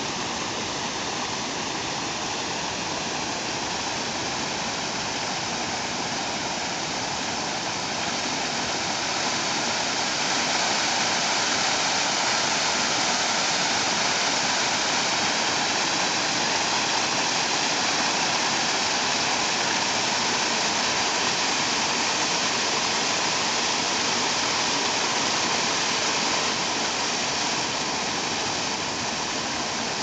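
Water falling over an icicle-covered stone weir into a stream: a steady rush, a little louder through the middle.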